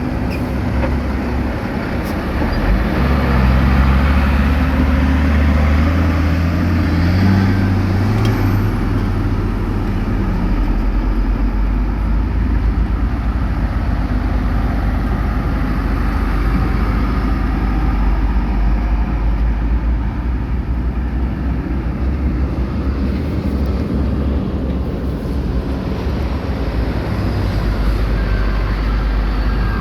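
Heavy construction machine's diesel engine running, working harder and louder from about three seconds in until about ten seconds in, then settling to a steady, lower run.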